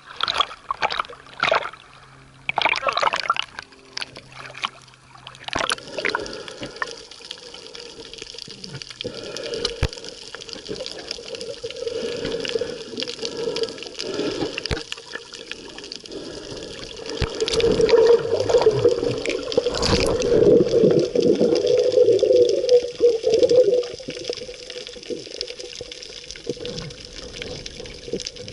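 Small sea waves splash against a waterproof camera at the surface. Then the camera goes under, and the sound turns to muffled underwater sloshing and bubbling, loudest a little past the middle.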